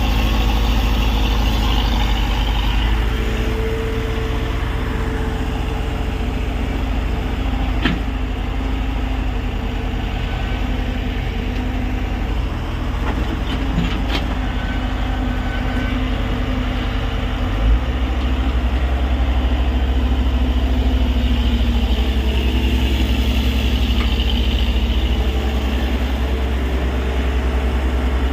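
Tata Hitachi EX70 excavator's diesel engine running steadily while the machine works. There are a few sharp knocks, and a thump about two-thirds of the way in, after which the low engine hum shifts to a different steady note.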